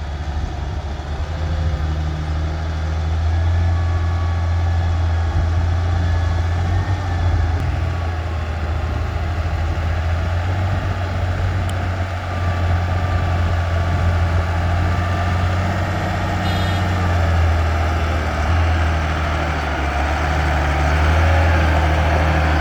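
Heavy diesel dump truck engine pulling under load as the truck climbs out of a pit. It makes a steady low drone with a faint wavering whine above it, and grows slowly louder.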